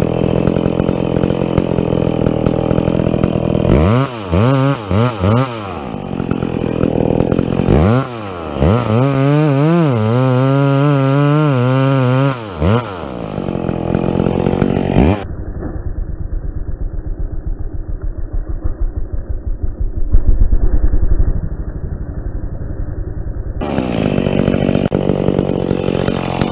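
Two-stroke chainsaw running, its engine revved up and down in quick repeated swings twice in the first half. For several seconds in the middle the sound goes dull and muffled with a rapid even pulsing, then the saw runs steadily again near the end.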